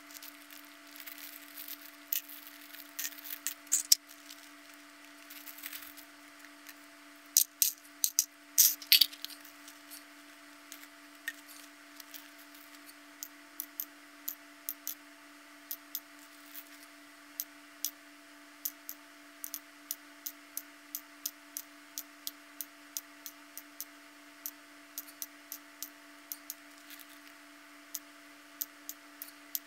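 Small plastic twisty-puzzle kit parts clicking against a hard surface as they are handled and counted. A cluster of louder clicks comes about seven to nine seconds in, then single clicks at about one or two a second, over a faint steady hum.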